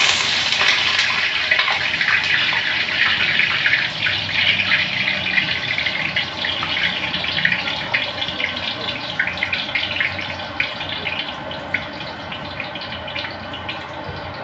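Pot of fish sinigang soup boiling hard on a gas burner: a steady bubbling, crackling hiss of rolling boil, growing a little quieter over the later seconds.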